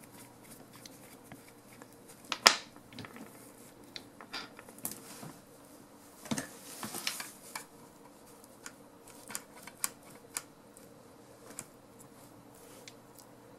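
Small metal parts of a Husky torque wrench's ratchet head being handled and fitted together: scattered light clicks and taps, the sharpest about two and a half seconds in, and a short cluster of clicks and rustling around six to seven seconds in.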